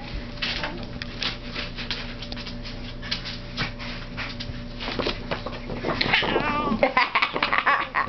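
A laminated plastic sheet crackles and flaps in quick irregular clicks as a baby grabs, bends and waves it. From about six seconds in, the baby adds wavering high-pitched squeals.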